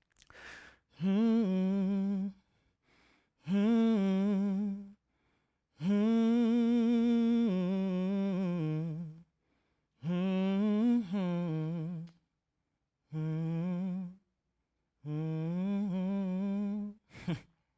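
A man humming a slow, wordless tune in six phrases, each one to three seconds long with short pauses between them.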